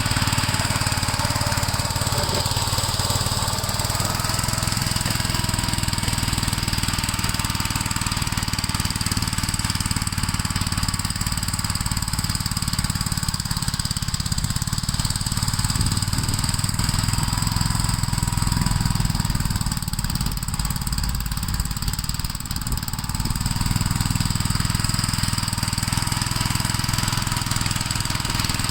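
Gravely L8 walk-behind tractor's engine running steadily while plowing snow, easing off slightly about two-thirds of the way through.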